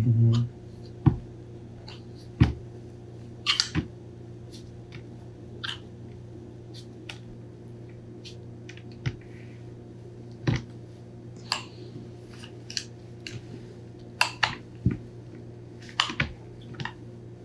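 Kitchen knife trimming overhanging pie crust off the rim of a glass pie dish: irregular clicks and scrapes of the blade against the dish edge, over a steady low hum.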